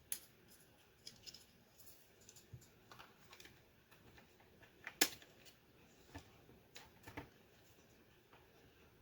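Scattered light clicks and taps of small plastic parts of a Commodore 64 keyboard being handled and fitted, irregular, with one sharper click about five seconds in.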